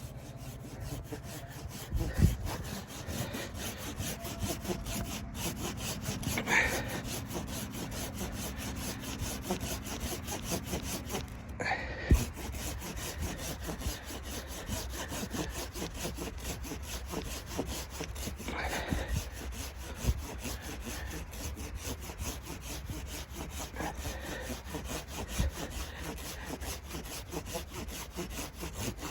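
Hand saw cutting through wood in steady, continuous strokes, with a few sharp knocks along the way.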